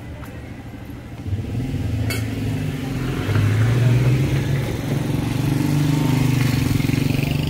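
Engines of a pickup truck and a motorcycle passing close by, swelling from about a second in and rising in pitch around the middle as they pull through.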